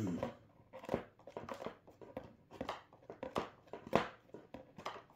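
Someone rummaging through stored items in a search, handling and moving things: a string of irregular knocks, clacks and rustles, about two a second, loudest right at the start.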